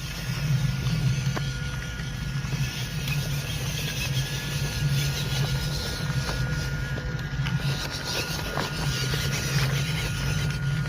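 The small 260 electric motor and gearbox of an MN99 Land Rover D90 RC crawler running as it climbs a loose hill: a steady drone with a thin whine, and a few scattered clicks from the tyres on stones.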